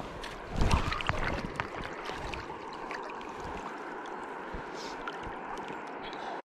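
River water flowing and gurgling steadily around a wading angler. About half a second in comes a short, louder burst of noise close to the microphone.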